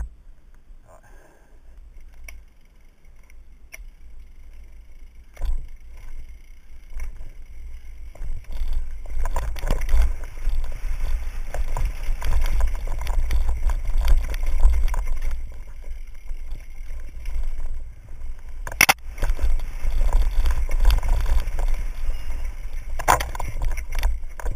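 Mountain bike riding fast down a dirt trail: wind buffeting the helmet-mounted camera's microphone, with the tyres rolling over dirt and stones and the bike rattling. It starts quiet and builds a few seconds in as speed picks up, with two sharp knocks late on from bumps.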